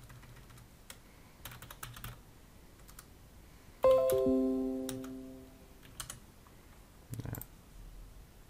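Computer keyboard typing in short bursts of clicks, then about four seconds in a Windows notification chime sounds and fades over about a second and a half, announcing a 'Restart required' update notice.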